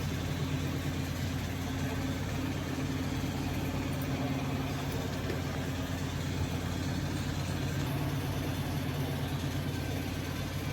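A steady low mechanical hum with a few held low tones, unchanging in level.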